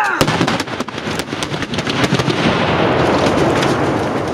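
Pyrotechnic explosion setting two cars ablaze: a sharp bang just after the start, then many crackles and a loud steady rush of burning fuel that slowly eases toward the end.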